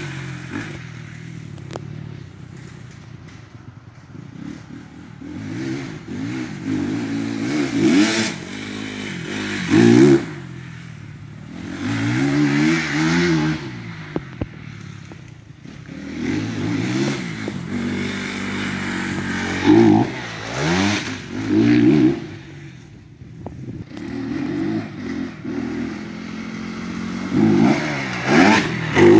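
Dirt bike engine revving up and dropping back over and over as it is ridden hard around a dirt track, with the pitch climbing and falling through the gears. It is loudest when the bike passes close, about a third of the way in, twice around two-thirds of the way, and again near the end.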